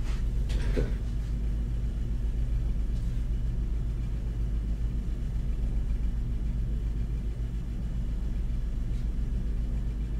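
Steady low rumble with a constant hum, the running equipment of a lampworking studio.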